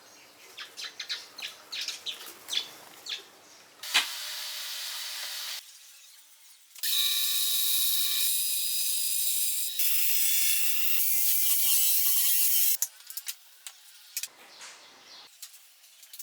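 Workshop sounds: a string of light clicks and knocks, then a short steady noise, then a machine running loud and steady for about six seconds with a whine that wavers near the end and cuts off, followed by more clicks.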